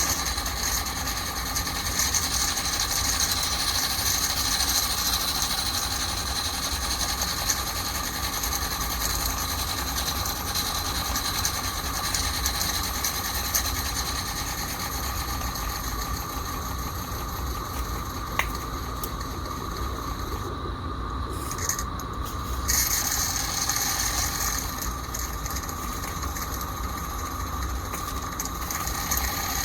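Accucraft Ruby live-steam model locomotive running steadily without load: the fast, even chatter of its steam exhaust and running gear. The higher hiss drops away briefly about 21 seconds in, then returns.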